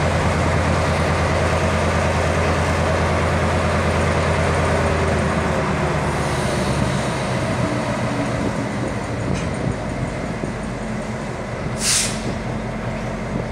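Diesel-electric locomotive running as it slowly hauls tank wagons, its engine note steady and deep, then easing off about halfway through. A short hiss of air comes about a second before the end.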